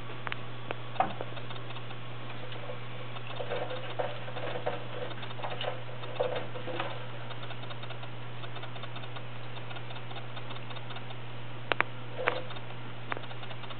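Thin stream of tap water running into a stainless steel sink, with scattered light taps and clicks as a cat paws at the stream and moves about on the wire dish rack, several close together in the middle and a few near the end. A steady low hum runs underneath.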